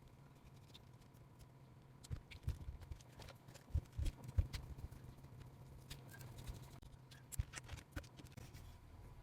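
Faint, irregular clicks and taps of a small hex driver and tiny metal parts being handled while the steering links are unscrewed from a mini RC crawler's front axle.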